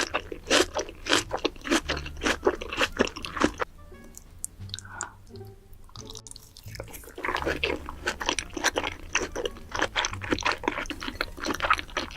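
Close-miked crunchy chewing of raw vegetables rolled in raw salmon: dense crunching, a quieter pause of about three seconds in the middle, then more crunching.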